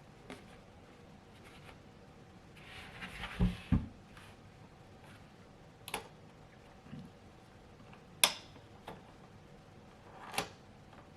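Packaging and parts being handled: a short rustle about three seconds in with two dull thumps, then three sharp clicks or taps spread through the rest.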